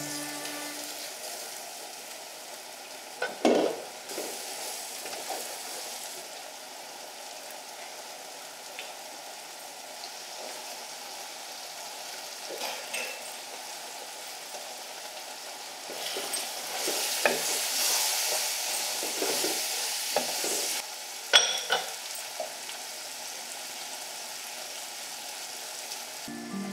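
Pumpkin and chickpea curry sizzling in an unglazed clay pot, with a spoon stirring and knocking against the pot. There is a loud knock about three seconds in, and the sizzling swells as it is stirred partway through, with a few sharp clicks near the end.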